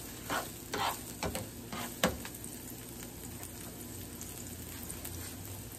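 Diced onions and green peppers sizzling on a griddle pan. A spatula scrapes and knocks against the pan a few times in the first two seconds, the sharpest knock about two seconds in, then the sizzling goes on steadily.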